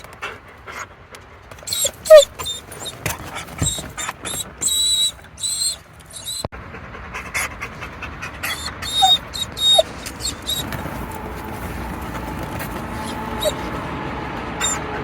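German shepherd dog whimpering in short high whines, among scattered clicks and knocks.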